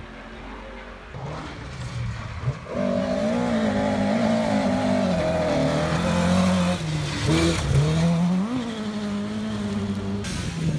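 Rally car engine on a gravel forest stage: faint and distant at first, then loud and close from about two and a half seconds in, revving hard with its pitch dropping and climbing again several times as the Mk2 Ford Escort rally car brakes, changes gear and accelerates through a corner.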